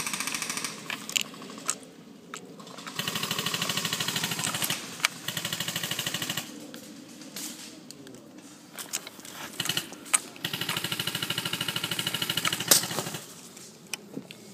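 Airsoft guns firing full-auto in about four rapid rattling bursts, each one to two seconds long, with a few sharp single cracks between the bursts.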